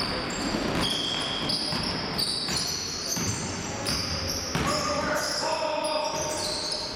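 Basketball being dribbled on a hardwood gym floor, with sneakers squeaking over and over as players cut and stop.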